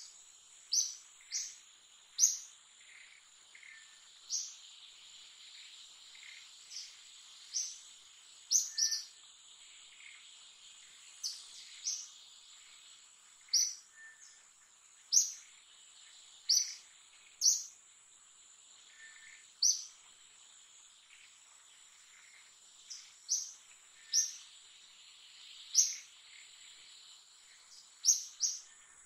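Forest ambience: short, high chirping calls repeating irregularly every second or two, some in quick pairs, over a steady high-pitched insect drone.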